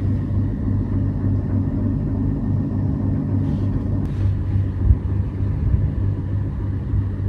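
Air conditioning running with a steady low hum.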